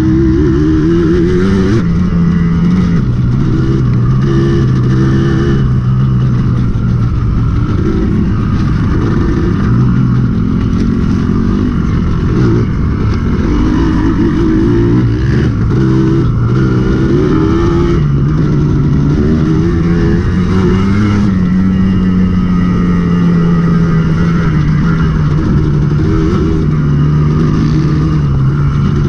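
Dirt bike engine running under load while being ridden, its pitch rising and falling again and again with throttle and gear changes.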